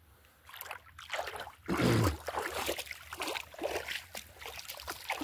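Shallow seawater splashing and sloshing in irregular bursts at the water's edge, starting about half a second in, with a louder thud around two seconds in.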